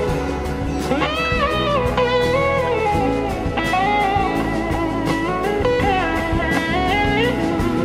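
Electric slide guitar solo in a blues-rock band, its notes gliding up and down between held pitches over bass and a steady drum beat.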